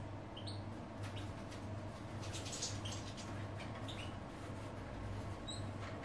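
European goldfinches giving short, high chirping calls now and then, several close together about two and a half seconds in, over a steady low hum.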